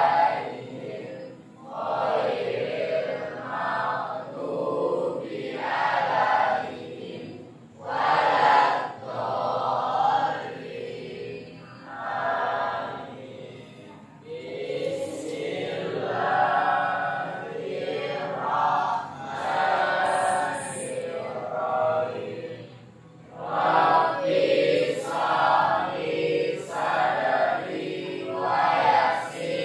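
Many voices singing together in unison, in phrases of a second or two with short breaks between lines.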